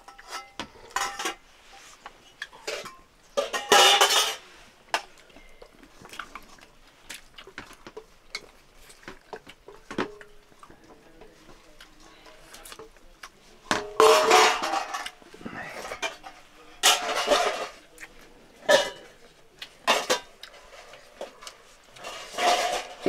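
Stainless steel plates and bowls clinking and scraping as people eat rice by hand, with small clicks throughout and several louder clatters spread across the stretch.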